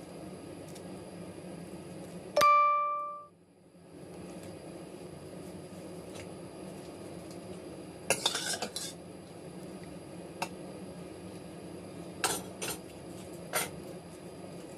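A ladle strikes the stainless steel stockpot about two seconds in, and the pot rings out clearly for about a second. Later comes a short run of clattering and a few lighter clinks of utensil on pot as the mixture is ladled out.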